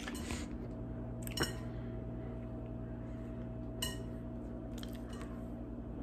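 Kitchen background: a steady low appliance hum, with a few light clinks of dishes or utensils, one of them ringing briefly.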